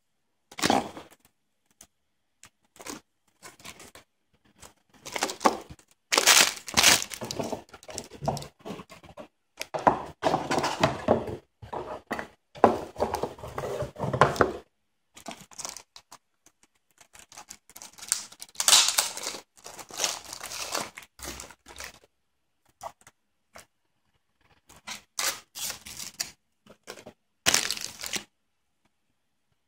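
Plastic bags and cardboard packaging crinkling and rustling as they are handled and opened, in irregular bursts of a few seconds with silent gaps between.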